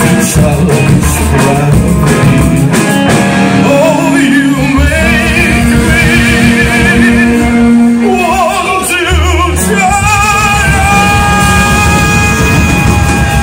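A rock band playing live with upright double bass and electric guitar. A lead melody runs over it in held notes that waver in pitch.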